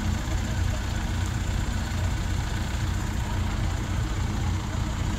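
Heavy diesel engine idling with a steady low throb.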